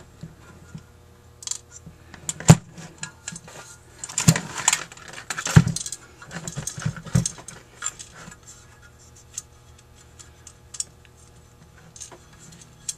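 Metal clinking and knocking as a Rochester 4GC carburetor's cast body is handled and turned over on a workbench, with small parts such as the main jets rattling. There are scattered knocks, the sharpest about two and a half seconds in.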